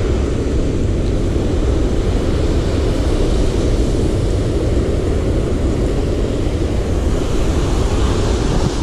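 Steady noise of breaking surf with wind rumbling on the microphone.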